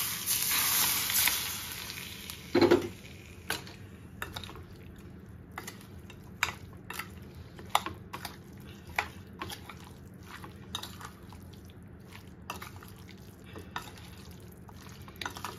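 Warm mustard oil poured from a small pan onto spice-coated raw chicken, sizzling with a loud hiss that fades after about two seconds. A single knock follows, then a spoon and hand mixing the marinade in the bowl, with scattered clicks and scrapes.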